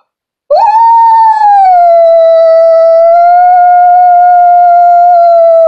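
A woman's vocal imitation of a New Guinea singing dog's howl: one loud one-note howl that sweeps up at the start, is held at a steady pitch for about five seconds, and drops off at the end.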